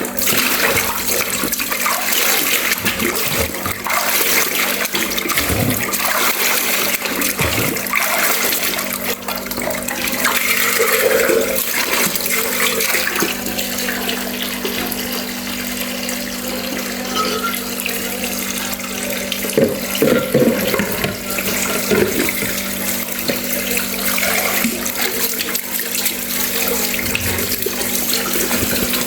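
Tap water running steadily into a sink while dishes are washed, with a few short knocks of dishes and a steady low hum underneath.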